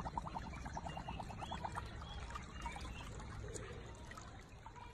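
Shallow water in a stone-lined ditch trickling and gurgling around a husky lying in it, with a quick run of gurgles in the first couple of seconds.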